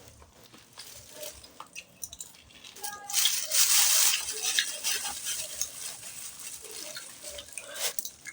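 Water running, as from a tap, starting about three seconds in, loudest for the next couple of seconds, then carrying on more quietly.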